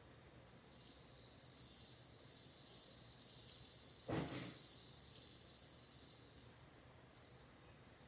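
A male Japanese bell cricket (suzumushi) singing one continuous high ringing trill for about six seconds. It starts just under a second in and stops suddenly.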